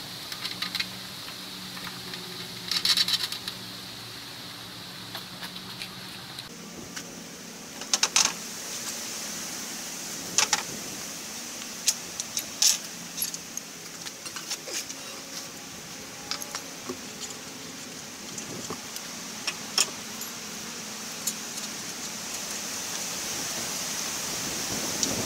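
Hand tools clinking and knocking against an aluminium scooter rack in scattered sharp metallic clicks, with a quick rattle of clicks about three seconds in, over a steady hiss.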